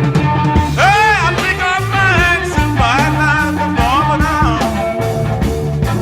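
Live psychedelic rock band playing: a high lead line with long bent, wavering notes over steady bass and drums.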